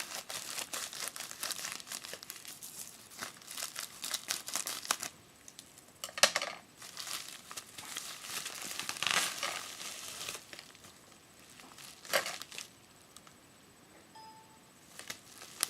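Packaging being opened by hand: steady crinkling and crackling for the first few seconds, then three separate rips, the one about nine seconds in the longest, before it goes quieter.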